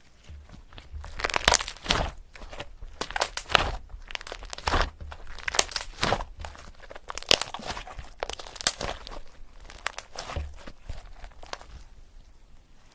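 Pen scratching on paper in quick, irregular strokes as lyrics are written out by hand.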